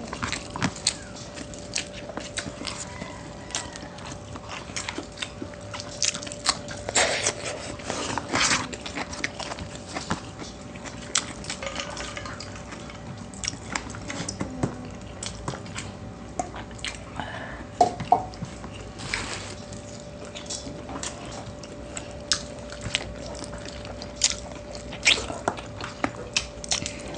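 Close-miked eating of chicken and pork adobo with rice: chewing and biting, with many short clicks throughout over a faint steady hum.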